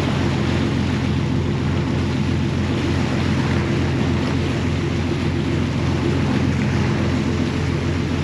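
Inboard engines of a 31-foot Bertram sportfishing boat running steadily at trolling speed: a constant low drone with wind and water hiss over it.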